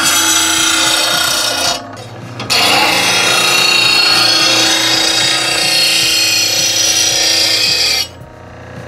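Bradley blade sharpener's grinding wheel grinding the edge of a steel lawn mower blade: a loud, harsh grinding rasp. It breaks off briefly about two seconds in between passes, resumes, and stops near the end, leaving the sharpener's motor humming.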